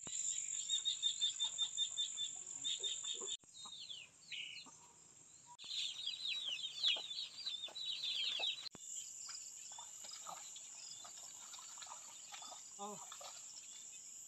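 Chicks peeping in quick, falling-pitched chirps over a steady high insect drone. A run of rapid high chirps comes before them, and the last few seconds hold mainly the insect drone.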